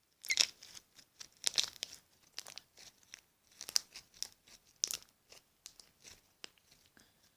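Slime being squeezed and worked in the hands, giving irregular crackling and popping clicks that thin out toward the end.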